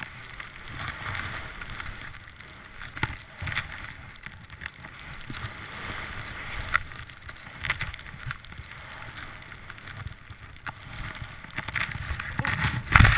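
Skis running through deep powder snow with a steady hiss and rushing wind on the helmet-mounted camera's microphone. It is broken by sharp knocks and thumps every few seconds, and the loudest burst of snow noise comes near the end.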